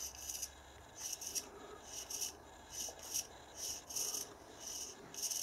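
Faint, dry rubbing of fingertips on the metal body of a dial test indicator as it is handled and turned, in short irregular strokes about twice a second.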